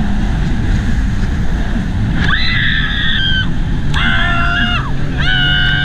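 Jet ski riders screaming: three long, high-pitched screams, the first about two seconds in and the last still going at the end, over the steady rush of wind, spray and the jet ski's engine.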